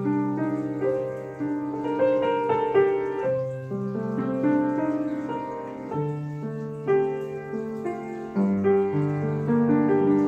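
Yamaha UX50 upright acoustic piano being played: a slow melody over long-held bass notes.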